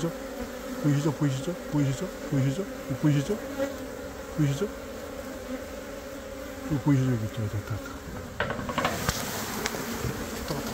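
Korean native honeybees (Apis cerana) from a swarm buzzing as they fly close past, in short overlapping buzzes that come and go, some dropping in pitch as they pass. A rustling noise joins them about eight seconds in.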